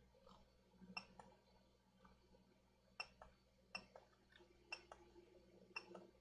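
Faint, sharp clicks, mostly in quick pairs about once a second, over near-silent room tone.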